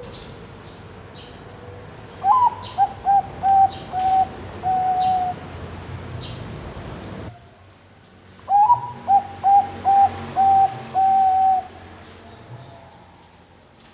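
Bangkok-bred zebra dove (perkutut) singing its cooing song twice. Each phrase opens with an upward-sweeping note, followed by a quick string of short coos and a longer held final coo.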